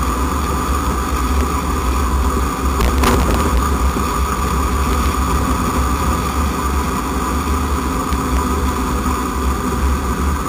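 Steady low rumble of road and wind noise picked up by a camera mounted on a moving car's front bumper, with a steady whine throughout. A short crack about three seconds in.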